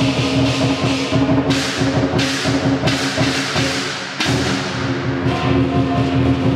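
Lion dance percussion music: steady drumming with repeated cymbal crashes, over a steady ringing tone.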